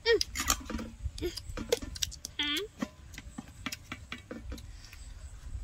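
Eating at a meal: a fork and knife click and scrape on a metal plate while roast beef is cut, mixed with mouth and chewing smacks, as a run of sharp irregular clicks. Two short pitched sounds come in, one right at the start and one about two and a half seconds in.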